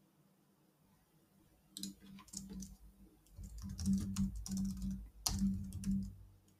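Computer keyboard typing: a quick run of keystrokes entering a short word, starting about two seconds in and stopping just before the end.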